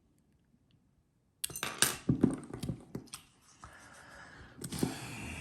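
Sharp metallic clicks and rattles of a lock pick and tension wrench working in a Master Lock Pro Series 6321 padlock, starting about a second and a half in. Softer handling noise follows.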